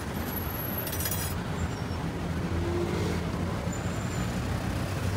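Steady road-traffic rumble with a low engine hum and no sudden events.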